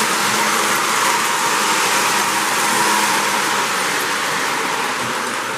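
Lionel O-gauge model train, a 736 steam locomotive pulling a heavy string of cars, running along the track with a steady noise of wheels on rail. The noise eases off somewhat in the last couple of seconds as the cars pass out of view.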